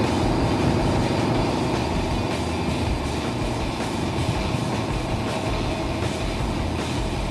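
Air compressor running steadily while compressed air is fed into a wide rear motorcycle tire, trying to push the bead out onto the rim.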